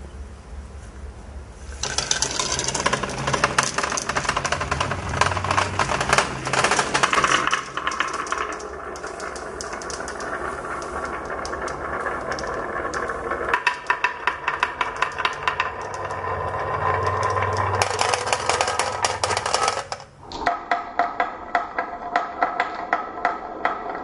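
Marbles and small toy vehicles rolling and clattering down a marble run: a dense rattle of clicks over a rolling rumble. It breaks off abruptly a few times, and near the end it becomes a sparser train of evenly spaced clicks.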